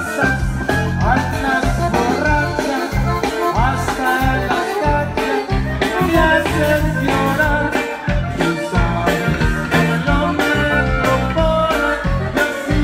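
A live band playing: button accordion over drum kit and electric bass with a steady beat, and a man singing into a microphone.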